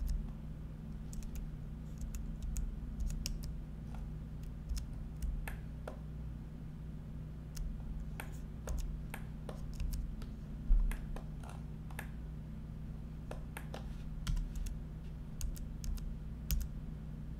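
Computer keyboard and mouse clicking at irregular intervals, with one louder thump about eleven seconds in, over a steady low electrical hum.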